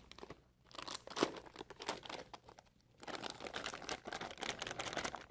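Plastic piping bag crinkling as it is handled and filled, in two spells of rustling with a short lull about halfway through.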